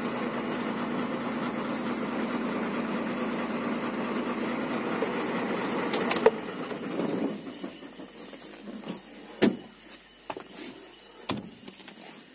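Hino 500 FM260JD truck's six-cylinder diesel engine idling steadily, then switched off with the ignition key about six seconds in and running down within a second or so. A few sharp knocks and clicks follow.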